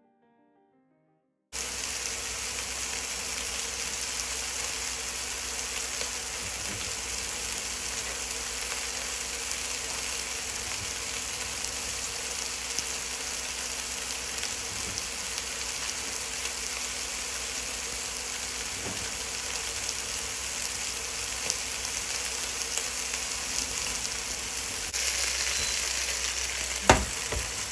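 Flour-coated lamb chunks searing in a hot stainless steel pot, sizzling steadily from about a second and a half in. The sizzle grows louder near the end, and a single sharp knock, the wooden spoon against the pot, comes just before the end.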